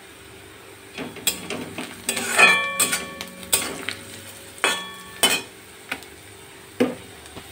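A flat metal spatula stirs frying onions, with salt just added, in an aluminium kadai. It scrapes and knocks against the pan, and several strikes make the pan ring briefly. The stirring starts about a second in and stops shortly before the end.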